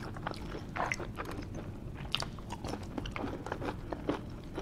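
A person chewing a mouthful of food with irregular short clicks and crunches.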